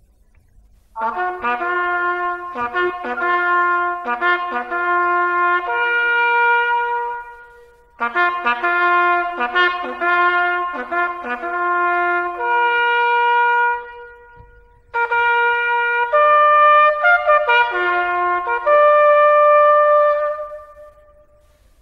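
Solo cornet playing a slow melody in three phrases, short separate notes ending each time on long held notes, with brief pauses between the phrases.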